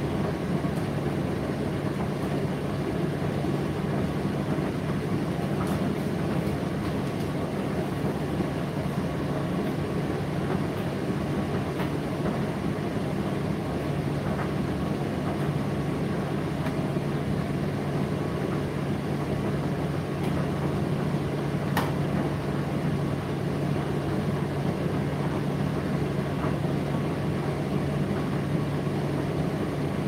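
Indesit IDC8T3 condenser tumble dryer running over an hour into a full drying cycle: a steady motor and fan hum with a low even tone and the rush of air. There is a single faint tick about 22 seconds in.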